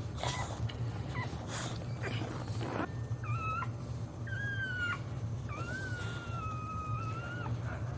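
Dog whining: three high, drawn-out cries, the last lasting about two seconds, over a steady low hum.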